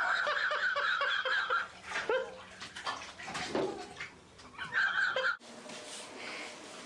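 Bathwater splashing and sloshing in a bathtub as a toddler thrashes about, mixed with the child's high excited squeals. The sound cuts off abruptly about five seconds in, leaving quiet room noise.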